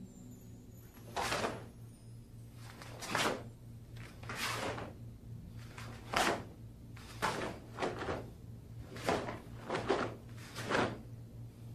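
Karate uniform snapping and swishing with each technique of a kata: about eight sharp swishes spaced a second or two apart, over a low steady hum.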